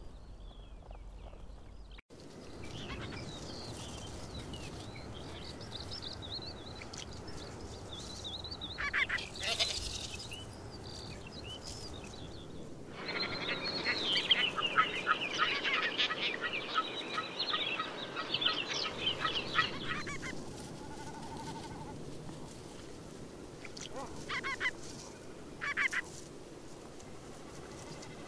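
Wading birds calling: scattered short calls at first, then a loud run of rapid chattering notes lasting about seven seconds from around the middle, then a few more single calls near the end.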